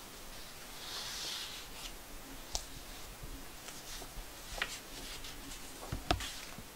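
Stiff paper certificates being handled and leafed through. A soft rustle comes about a second in, then a few sharp paper clicks and taps, the loudest near the end.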